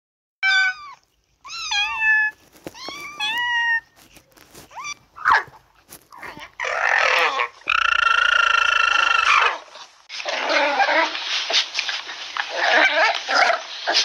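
Kittens meowing, three short meows in the first few seconds. Then an alpaca gives one held, steady high call lasting about two seconds. From about ten seconds in, puppies are growling and yipping as they play-fight.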